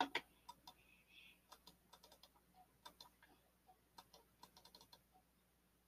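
Faint, irregular clicking of a computer keyboard, a few keys at a time with short gaps, dying away about five seconds in.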